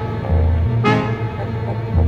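Background music: sustained chords over a deep bass, with a sharp accent about a second in.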